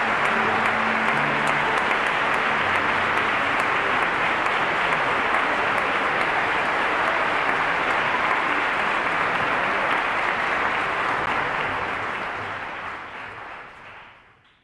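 Audience applauding steadily, fading out over the last couple of seconds.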